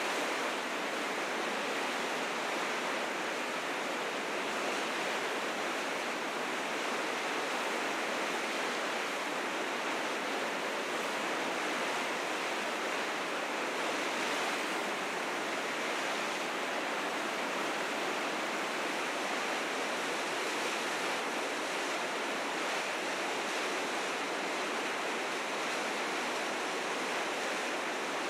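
River rapids rushing: fast, high spring meltwater running over the rapids in a steady, unbroken roar of white water.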